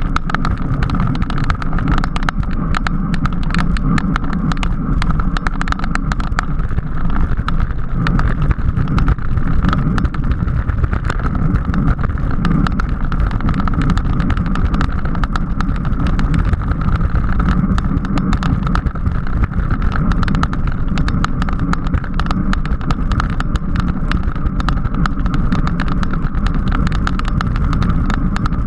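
Steady rush of wind and road noise on a camera riding with a racing bicycle at speed, with a constant hum and dense rattling clicks from road vibration.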